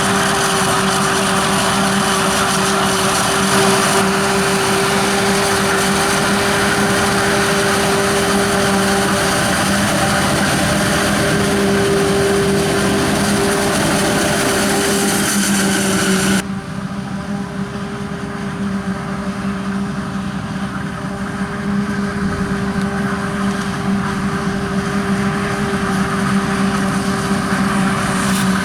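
Heavy farm machinery running steadily at a maize harvest: forage harvester and tractor engines with a constant two-note hum over a rushing hiss. About two-thirds of the way through, the hiss drops away suddenly while the hum carries on.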